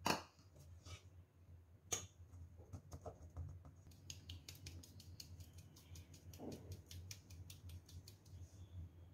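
Stainless steel mesh sieve shaken over a steel bowl to sift gram flour: faint, quick light metal ticks and rattles. There is a sharper tap at the start and another about two seconds in.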